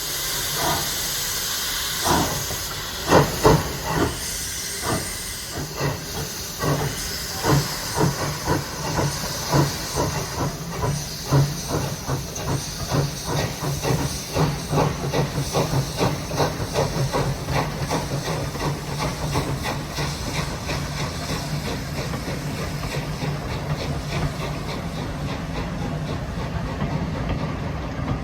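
Steam locomotive starting away: a loud hiss of steam, then exhaust chuffs from about two seconds in, the loudest early on, that quicken steadily until they run together into a continuous rumble.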